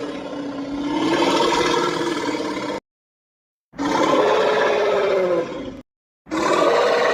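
Diplodocus sound effect pieced together from animal recordings: three drawn-out, pitched roaring calls, each slightly falling in pitch at its end and cutting off abruptly into silence.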